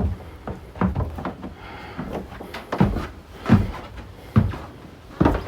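A series of dull thumps and knocks, about one a second, with light clatter on some of them.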